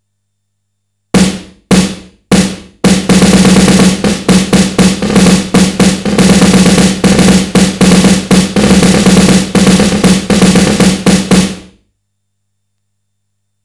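Simmons SDS7 electronic drum module sounding a sampled snare voice played from its EPROM, with a short reverb. Three single snare hits about a second in, then a quick run of repeated hits lasting about nine seconds before it stops.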